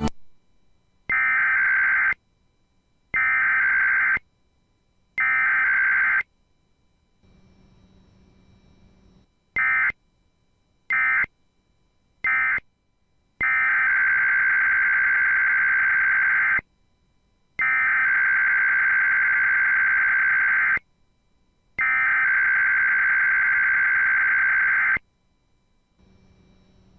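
Electronic alert tone beeping in a pattern: three one-second beeps, three short beeps, then three long tones of about three seconds each. A faint low hum sounds in the longer gaps.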